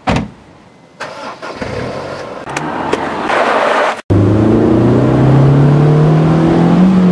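Honda S2000 four-cylinder engine and tyres as the car pulls away across gravel, with a short thump at the very start; after a sudden cut about four seconds in, a steady engine note rises slowly in pitch as the car accelerates in gear.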